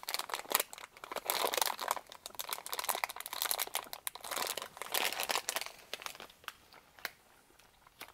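Plastic sweets bag crinkling as hands rummage in it and pull pieces out. The crackle is dense for about the first six seconds, then dies down to a few scattered crackles.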